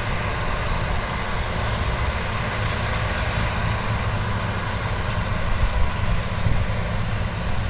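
Heavy diesel earthmoving machinery at work, its engines running with a steady low rumble, and a single brief knock about six seconds in.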